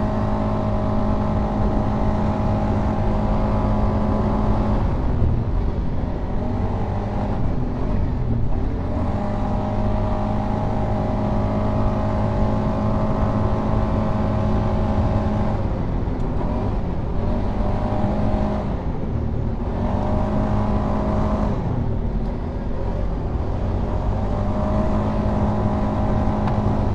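Polaris Sportsman 570 ATV's single-cylinder engine running steadily at high revs under way, heard from the rider's seat. The engine note dips and picks back up several times as the throttle comes off and on.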